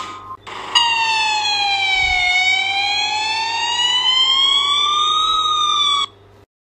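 Siren-like wail sound effect: one pitched tone with strong overtones that enters sharply just under a second in after a short whoosh, slides slowly down, then climbs over a few seconds and cuts off suddenly about six seconds in. A faint low thud sounds about two seconds in.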